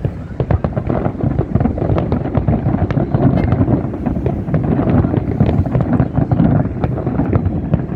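Fireworks display at its height: a dense barrage of rapid bangs and crackles that run together into a continuous rumble.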